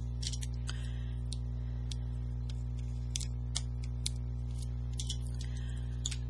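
Scattered light clicks and taps from hands handling a small paper piece and a glue bottle on a cutting mat, over a steady low hum.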